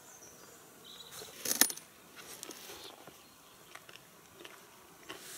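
Tableware and cutlery clattering: one sharp clink about a second and a half in, then scattered lighter clicks of a fork and plastic cups and plates.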